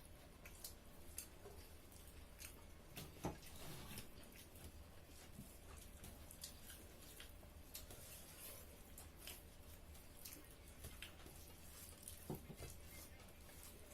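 Faint eating sounds: chewing and mouth smacking with scattered small clicks, and a couple of louder clicks about three seconds in and near the end.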